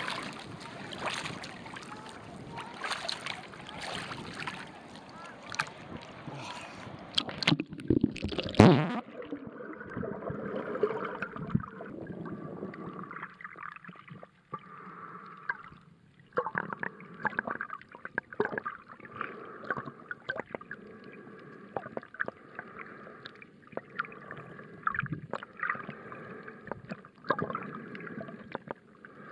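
Water splashing and sloshing over a camera at the surface. About nine seconds in there is a loud splash and the camera goes under; from then on the sound is muffled underwater noise with gurgling and scattered clicks.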